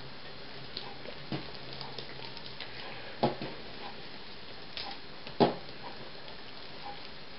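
Hands shaping yeast dough into balls and setting them down on an oiled table: soft handling sounds with a few short thumps about two seconds apart, the last the loudest, over a steady low hiss.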